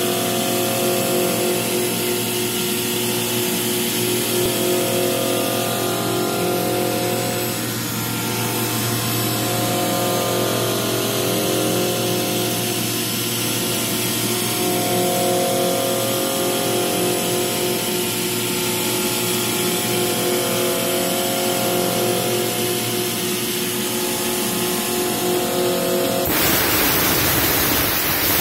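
CNC milling machine cutting a metal mould with an end mill: a steady machining whine with several wavering tones and a pulsing hum underneath. A loud, broad hiss starts about two seconds before the end.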